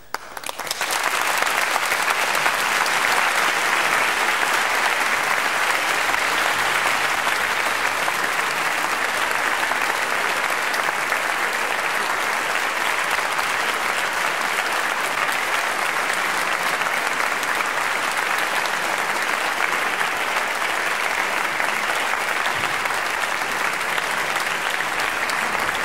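Concert hall audience applauding: the clapping starts suddenly, swells to full strength within about a second and then holds steady.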